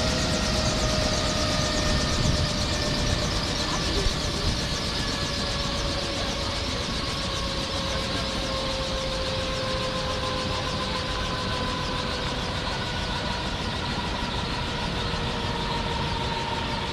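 Helicopter engine and rotor running steadily, with a whine that slowly falls in pitch.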